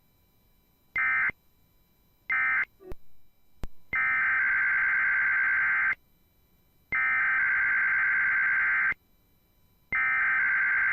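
NOAA Weather Radio SAME (Emergency Alert System) digital code bursts, harsh buzzing data tones. First come three short end-of-message bursts, then, about four seconds in, three longer bursts of about two seconds each with a second's gap between them: the header codes of a new weekly test.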